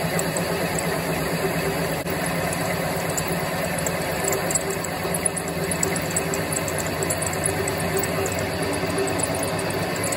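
Drill press running steadily, a hole saw cutting into a thick slug of cast scrap aluminium: a constant motor hum with the grind of the cutter.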